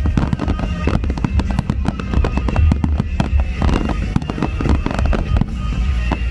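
Fireworks display: rapid, overlapping bangs and crackles from aerial shells, comets and crackling stars, with music playing underneath.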